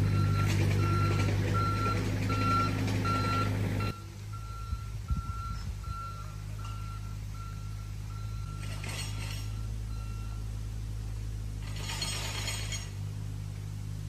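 A vehicle's reversing alarm beeping steadily, about two and a half beeps a second, over the low hum of a running engine that drops in level about four seconds in. The beeping stops about ten seconds in, and there are two short hisses near the end.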